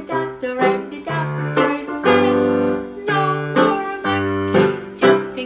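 Electronic keyboard played with a piano sound: a short melody of separate notes over held low notes.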